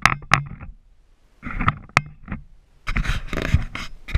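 Handling noise from a small action camera being gripped and turned on its mount: three bouts of rubbing and scraping with sharp clicks, quiet gaps between them.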